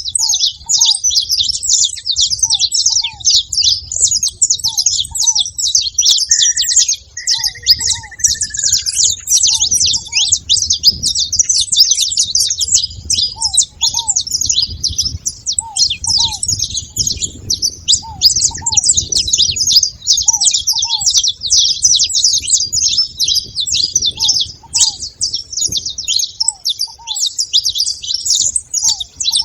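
Saffron finches chirping in a dense, continuous stream of high chirps. Under it, a lower double note repeats every second or two, and a brief whistle comes about a quarter of the way in.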